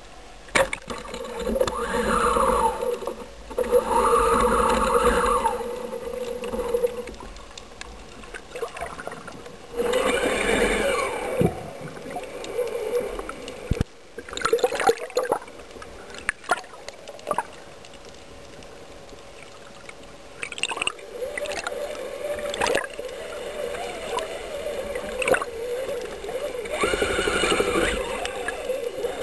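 Water gurgling and sloshing around a camera at and just under the sea surface, with irregular louder stretches of bubbling and splashing and a few sharp knocks.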